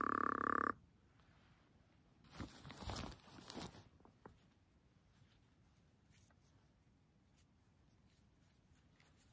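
A steady buzzing tone that cuts off under a second in, then about a second and a half of rustling and scraping.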